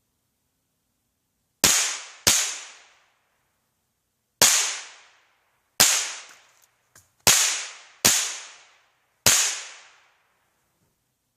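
Marlin Model 795 semi-automatic .22 rifle firing seven single shots at uneven intervals over about eight seconds. Each report is a sharp crack followed by a trailing echo of about a second. A faint click falls between the fourth and fifth shots.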